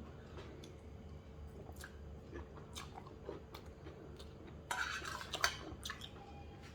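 Someone eating a plate of noodles: light clinks of a utensil on the plate and chewing, with a louder scrape and clatter about five seconds in.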